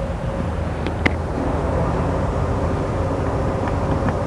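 Steady low mechanical hum, with a single light click about a second in.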